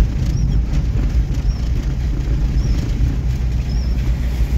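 Car engine and tyres running steadily on a muddy dirt road, heard from inside the cabin as a low rumble. A faint high squeak repeats about once a second over it.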